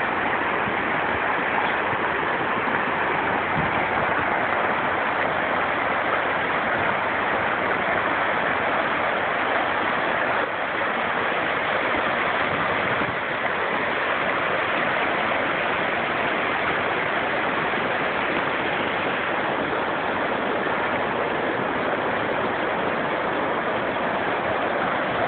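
Flooding river water rushing steadily over a concrete wall and across a paved road.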